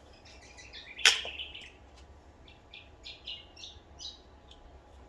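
A bird chirping in a series of short, high notes, with one sharp click about a second in.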